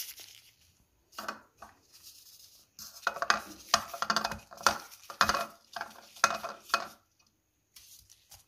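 A cookie-dough ball pressed and rolled in crushed coconut in a glass bowl, the hand and dough scraping and knocking against the glass in short strokes, about two a second.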